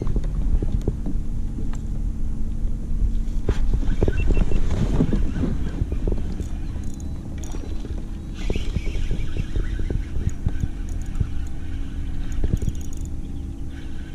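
Kayak handling noise while a hooked fish is fought in: many clicks and knocks on the kayak over a low rumble of wind on the microphone and a steady low hum. The knocking is busiest about four to six seconds in.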